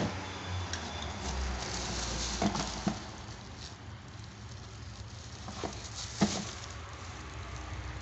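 Crinkling of bubble wrap and rustling of a cardboard box as it is opened and handled, with a few light knocks.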